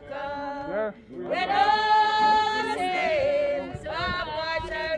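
Congregation of men and women singing a hymn, with one long held note in the middle that then falls away.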